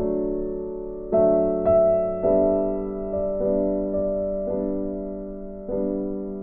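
Slow background piano music: sustained chords, a new one struck about every second and left to fade.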